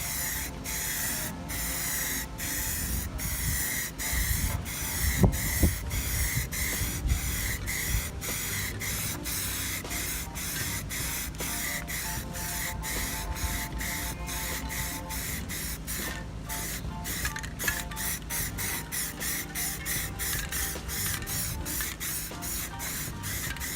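Aerosol can of Rustoleum automotive primer spraying in repeated passes: a hiss broken by short gaps about once or twice a second. There is a brief low rumble about five seconds in.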